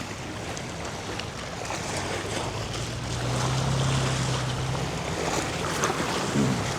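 Wind on the microphone and small bay waves washing against the shore, a steady noisy rush with a low hum that swells about three seconds in and eases again.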